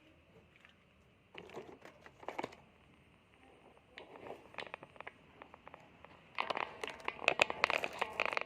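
Handling noise: crinkling and small clicks in three bursts, the last and loudest from about six seconds in.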